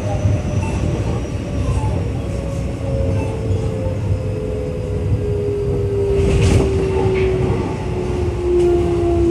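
Keio 8000-series train's Hitachi GTO-VVVF inverter whine gliding steadily down in pitch as the train slows, over the rumble of wheels on rail, heard inside the passenger car. A brief hiss comes about six and a half seconds in.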